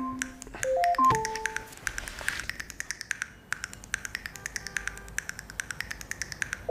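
A tablet alarm tone playing a short melody of steady beeping notes, which stops with a falling note about a second in. After it comes a light, quick clicking rhythm in the background music.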